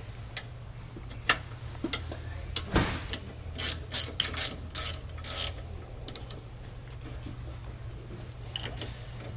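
Ratchet wrench clicking in short irregular runs as the rear brake caliper bolts are tightened, the clicks thickest around the middle. A steady low hum runs underneath.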